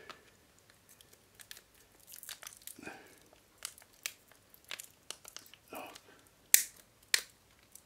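Cutters snipping at the welded tab joining a lithium-polymer pouch cell to its pack, with faint crinkling of the foil-wrapped cell and scattered small clicks. Two sharp snaps come shortly before the end.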